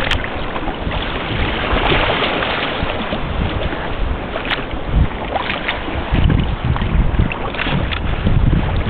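Sailing kayak moving through the water: a steady hiss of water along the hull with scattered small splashes, and wind buffeting the microphone, heavier from about six seconds in.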